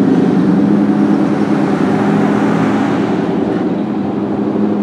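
Road traffic driving past: car tyre noise swells as a vehicle passes about two seconds in, over a steady low engine hum.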